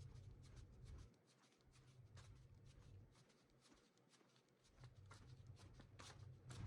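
Near silence, with faint, irregular rustling ticks as test smoke is fanned away from a smoke alarm to clear its sensing chamber, over a low hum that drops out twice.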